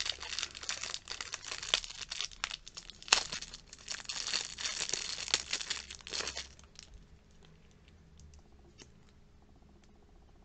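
Clear plastic wrapper crinkling and rustling as hands work it off a liquid lip tint tube, for about six seconds. After that, quiet with a few faint clicks.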